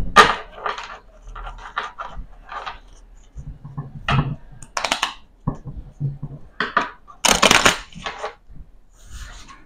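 Playing cards being picked up off a felt-covered table and squared and tapped into a deck by hand: a run of short crisp card snaps and scrapes, with a longer riffling rush about three-quarters of the way through.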